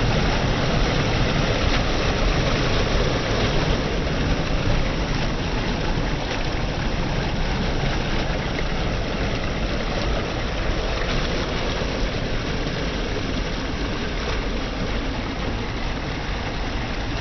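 Steady rush of fast-flowing river water, an even roar that eases off slightly toward the end.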